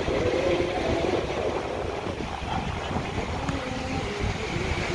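Wind buffeting the microphone in a steady low rumble, with faint distant voices from the crowd underneath.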